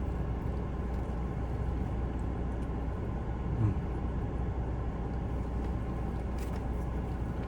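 Air conditioner running: a steady low hum with an even rush of air.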